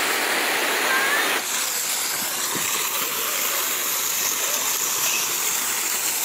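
Small artificial waterfall pouring into a rock-lined pond, a steady rush and splash of falling water that turns brighter and hissier about a second and a half in.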